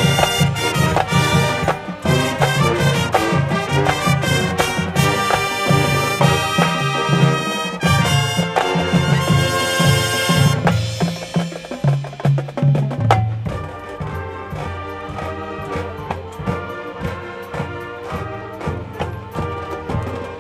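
High school marching band playing its field show: full brass with drum hits, dropping to a softer, thinner passage about halfway through.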